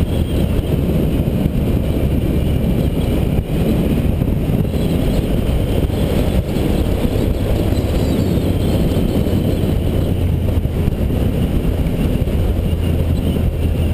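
Triumph Tiger 800 XC motorcycle engine running steadily at cruising speed, heard from the bike itself, mixed with wind rush on the microphone.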